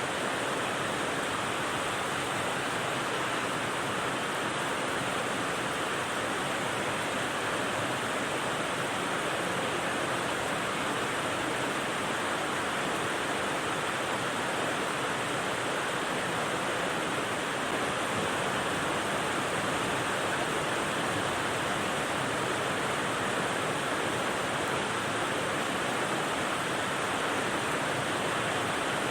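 Steady rain white noise: an even, unchanging hiss with no separate drops standing out.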